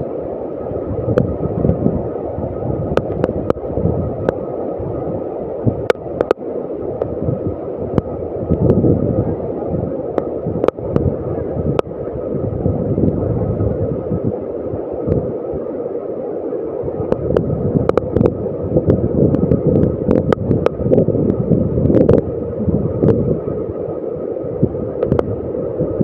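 Steady loud rushing roar of a large waterfall mixed with wind buffeting the microphone, with scattered short knocks.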